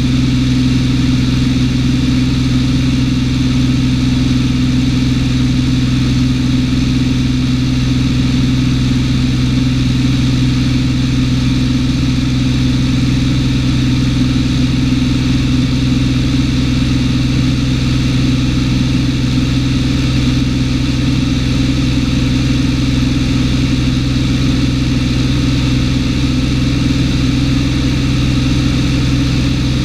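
Cessna 210's six-cylinder piston engine and propeller running steadily in flight, a constant low tone heard from inside the cabin.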